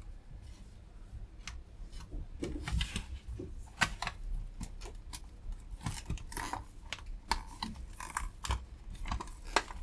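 Small plastic docking-station casing being handled and turned over on a workbench: irregular light clicks, taps and knocks of plastic against plastic and the bench.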